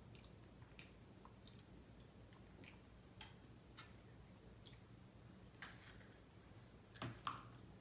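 Near silence with faint, scattered clicks and small handling noises from a plastic spoon and a small baby-food container. Two slightly louder clicks come near the end.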